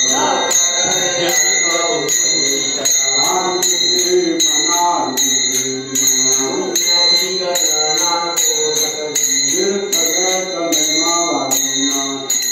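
Group of men singing a devotional bhajan, with brass hand cymbals (taal) struck in a steady rhythm and ringing throughout.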